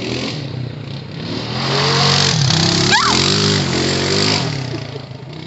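ATV engine revving hard, its pitch rising and falling and loudest through the middle, with a rushing hiss over it. A short rising squeal is heard about three seconds in.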